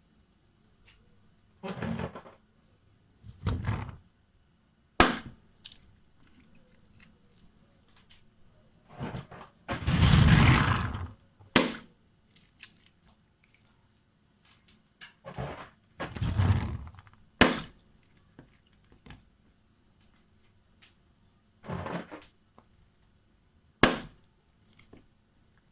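Balloons bursting: four sharp, loud pops spaced roughly six seconds apart, with longer rubbing and squeezing noises between them.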